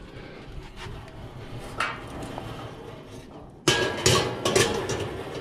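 Metal ash bucket of a charcoal kettle grill clanking against the grill as it is handled: a faint click, then a sudden run of three or four metal knocks and rattles about three and a half seconds in.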